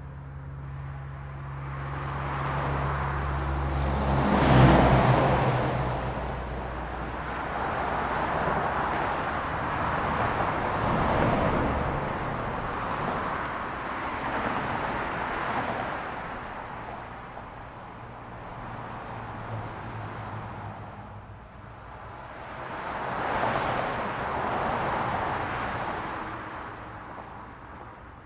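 Road traffic with vehicles passing one after another, the noise swelling and fading with each pass. A low engine drone runs through the first six seconds or so, and the loudest pass comes about four and a half seconds in.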